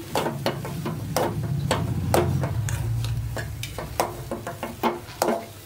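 Steel spatula stirring and scraping milk-soaked bread pieces in an aluminium pan, with irregular clinks and scrapes against the pan a few times a second, over a low steady hum.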